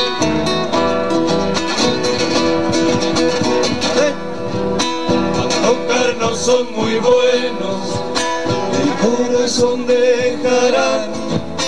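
Live Argentine folk music with an acoustic guitar strummed steadily through an instrumental passage of the song.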